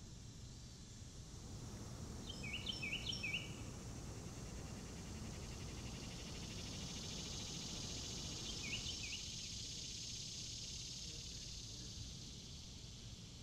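Woodland ambience: a steady high insect drone over a low rumble, with a bird giving four quick rising chirps about two to three seconds in and two more about nine seconds in.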